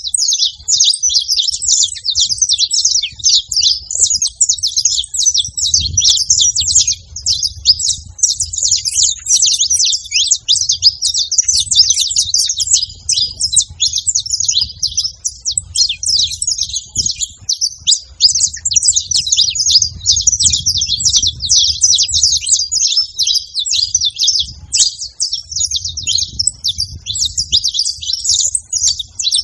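Saffron finches singing and chirping together, a dense, continuous stream of quick high chirps with no pauses.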